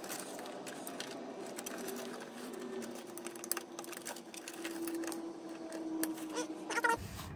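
Small clicks and rattles of wire harness and plastic connectors being handled inside a PTAC's control box, with a faint steady hum that rises slightly in pitch partway through.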